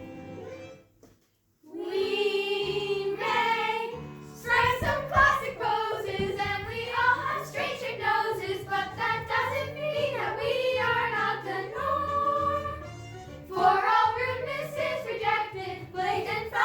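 Young voices singing a musical-theatre number over instrumental accompaniment. The music starts after a brief near-silent pause about a second in.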